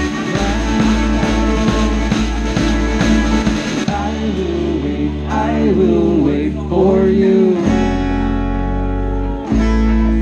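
Live acoustic folk-rock band playing: strummed acoustic guitars over bass and drums, with a driving beat for the first few seconds, then held bass notes under a bending melody line.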